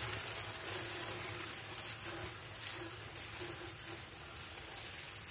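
Garden hose spraying water into a freshly charred, still-smouldering oak barrel to put the fire out: a steady hiss of spray and steam.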